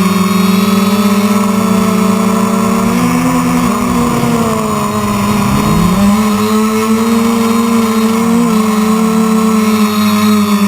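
Quadcopter motors and propellers whining at a steady pitch, then dropping sharply in pitch about four seconds in and climbing back up within about two seconds.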